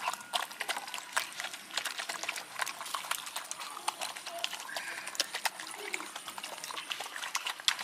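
Several dogs eating rice from a metal tray, chewing and lapping in quick, irregular smacks and clicks.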